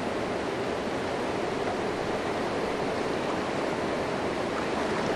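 River water rushing steadily, an even wash of flowing current.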